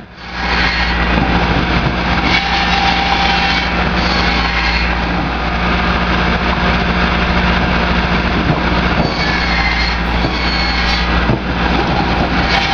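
Engine-driven firewood-processing machine running steadily: a continuous low engine drone under dense mechanical noise.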